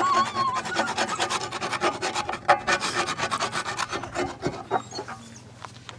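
A plastic spoon scraping around a cast-iron skillet as it stirs a wet mixture, in quick rasping strokes that fade out about four seconds in.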